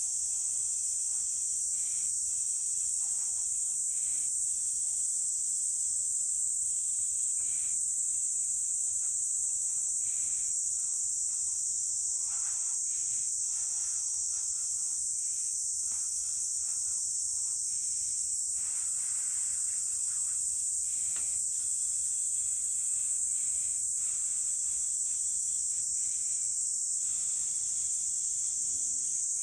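Steady high-pitched drone of a summer insect chorus, unbroken throughout, with faint scattered clicks and pops beneath it.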